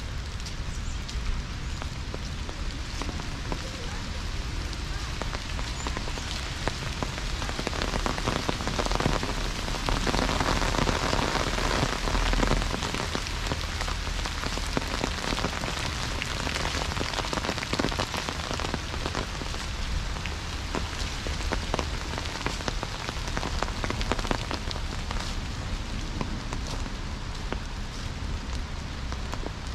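Rain pattering steadily on leaves and ground: a dense hiss scattered with irregular drop ticks, growing heavier for a few seconds around the middle.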